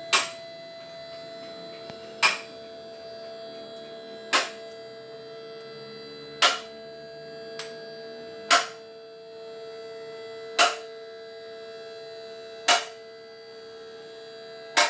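Two-post car lift raising a car: its electric hydraulic pump hums steadily while the lift's safety locks click sharply about every two seconds as the arms climb past each lock notch.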